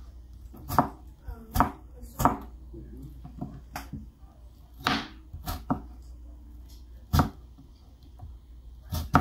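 Cleaver-style kitchen knife chopping thin slices of watermelon rind on a plastic cutting board: sharp knocks at an uneven pace, about ten in all.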